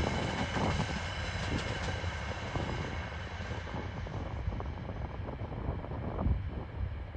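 Freight train wagons rolling away along the track, a low rumble with scattered wheel clicks, fading steadily as the train recedes.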